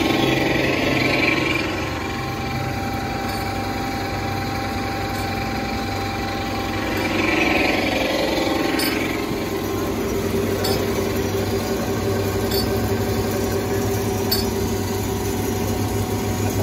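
Hyd-Mech automatic horizontal bandsaw running with a steady machine hum. A brighter rushing sound swells up briefly near the start and again about seven seconds in.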